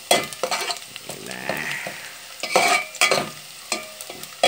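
Sliced onion and garlic sizzling in hot oil in a metal pot while a spoon stirs them, knocking and scraping against the pot several times: the sauté (gisa) stage.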